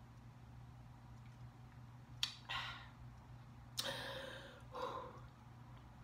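Faint mouth and breath sounds of a woman drinking from a plastic water bottle: a click about two seconds in, then a few short breathy exhales, over a low steady hum.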